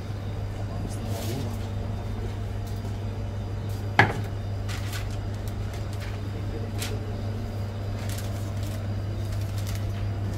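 Hand food-preparation sounds at a sandwich counter: faint clicks and one sharp knock about four seconds in, over a steady low hum.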